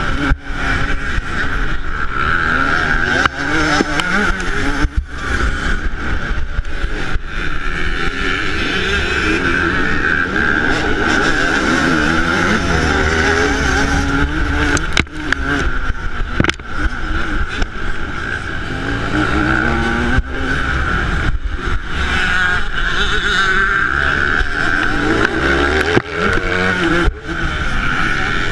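Yamaha YZ125 single-cylinder two-stroke motocross engine, heard onboard, revving up and down repeatedly as the rider works the throttle and gears. The sound drops out briefly many times.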